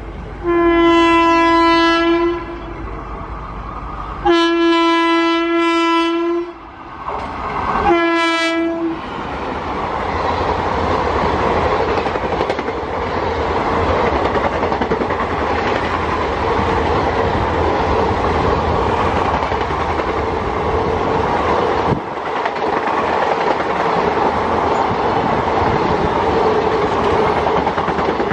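WAP-4 electric locomotive sounding its horn three times, two long blasts and a shorter third, as the express approaches at speed. Then the passenger coaches rush past with a steady roar of wheels and clickety-clack over the rail joints.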